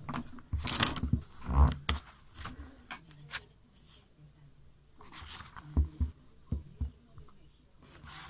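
Rustling and light knocks from a paper notebook and the recording phone being handled close to the microphone, in two bursts: about a second in, and again around five to seven seconds in.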